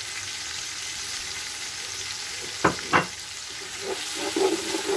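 Fried onions and spices sizzling steadily in hot oil in a steel pot. A little past halfway there are two sharp knocks about half a second apart, and near the end a wooden spoon starts stirring and scraping through the mixture.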